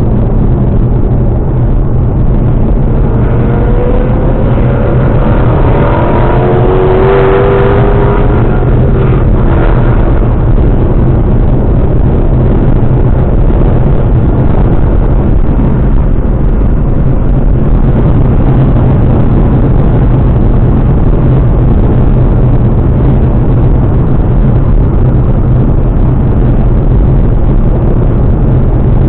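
Ford Mustang driving: steady, loud engine and road noise, with the engine note rising for several seconds starting about three seconds in.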